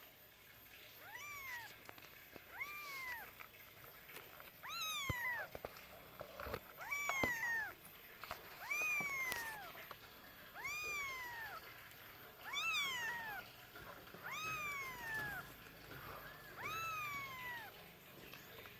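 A kitten meowing over and over, about ten high calls each rising then falling in pitch, one every couple of seconds, with a few short clicks in between.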